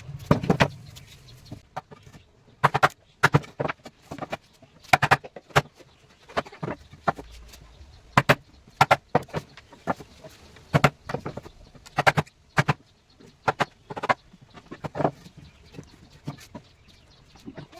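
Hammering on wood: sharp knocks in irregular clusters of two or three, a cluster every second or so.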